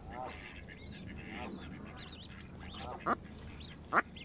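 Mallard ducklings peeping in many small, high chirps, with a few lower calls mixed in. Canada geese give two loud, short honks in the second half.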